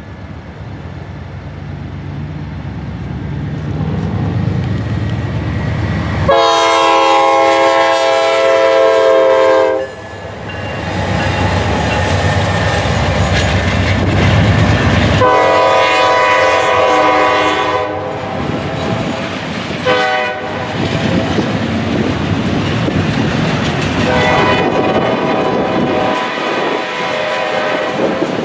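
Locomotive horn sounding the grade-crossing pattern of two long blasts, a short one and a final long one, over the rumble of an approaching train that grows louder during the first few seconds.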